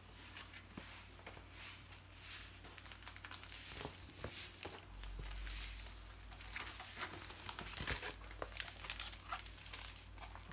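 Diamond painting canvas and its packaging crinkling and rustling as the rolled kit is handled, unrolled and smoothed flat by hand, in a run of irregular crackles.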